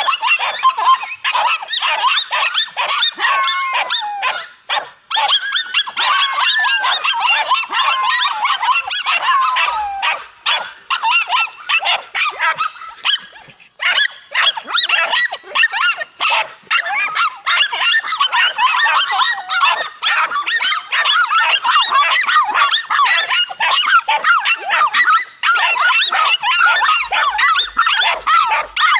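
Several dogs barking and yipping almost without pause, with high whines sliding in pitch during the first ten seconds and a couple of short lulls. The pack is baiting and attacking a cornered lizard.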